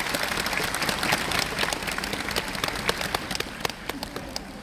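Audience applauding, a dense patter of hand claps that thins out and fades near the end.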